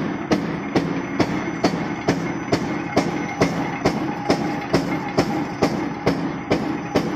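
Mechanical flywheel punch press stamping holes in a steel strip, striking about two and a half times a second over the steady hum of its running motor and flywheel.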